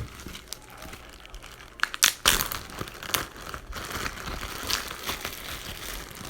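Crinkling and crackling from something being handled, irregular, with a few sharper crackles about two seconds in.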